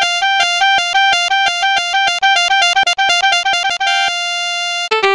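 Instrumental karaoke backing music played on an electronic keyboard: a fast melody of short repeated notes, about six a second, holds one note briefly around the four-second mark, then drops to a few lower notes near the end.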